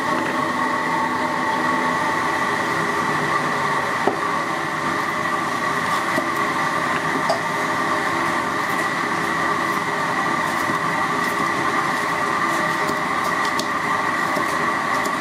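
A loud, steady mechanical drone with several steady tones. A few light knocks of a cleaver on a wooden chopping block come through, once about four seconds in, again about seven seconds in, and a few near the end.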